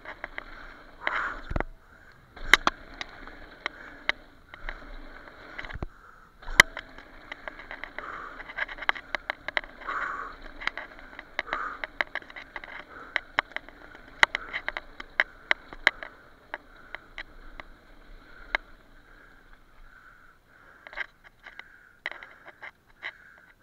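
Mountain bike rolling fast down a rocky dirt trail: knobby tyres crunching over dirt and loose stones, with frequent sharp clicks and rattles from the bike over the bumps.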